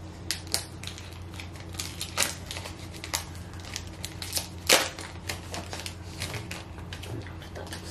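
Foil Pokémon TCG booster pack being torn open and handled: a run of irregular sharp crackles and clicks, the loudest just before five seconds in.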